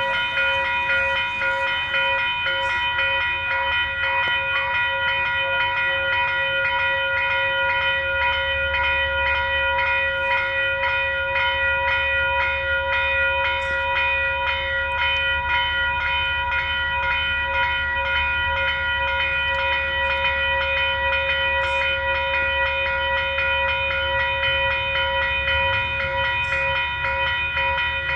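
A train at close range with a steady ringing tone and a low rumble that grows stronger about eight seconds in.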